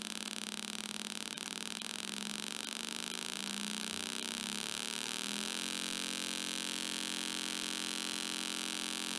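Harsh buzzing square-wave tone from a small speaker driven by a 555 timer oscillator. Its pitch climbs as the potentiometer is turned, then holds steady from a little past halfway.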